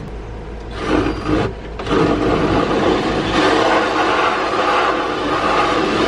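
Ryobi cordless drill driving a large hole saw into a cabinet wall: a couple of short starts, then steady cutting from about two seconds in.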